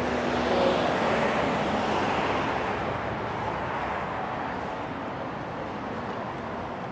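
Road traffic going by: a swell of tyre and engine noise from passing vehicles about a second in that slowly fades away.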